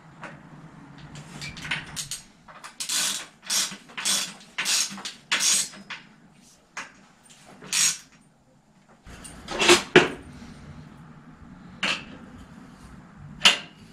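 Sharp metallic clinks and knocks from hand work on a bicycle's crank and bottom bracket: a quick run of five or six about half a second apart, then a few single knocks.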